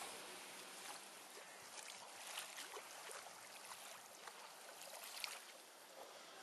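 Faint river water lapping and splashing under a steady hiss, with a few soft splashes spread through it.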